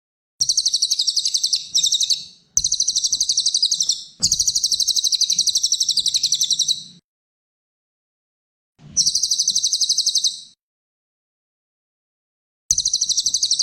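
Cililin songbird singing rapid high trills of quickly repeated notes, in four bursts of one and a half to three seconds each that start and stop abruptly, with short silences between them.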